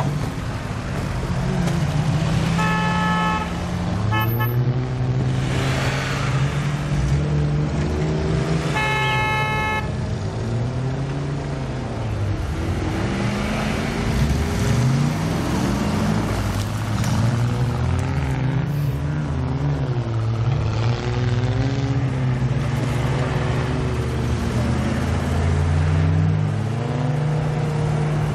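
Off-road 4x4 engines, among them a GAZ-66 truck, revving up and down again and again as they push through deep snow. A vehicle horn honks about three seconds in, gives two short toots just after, and honks again about nine seconds in.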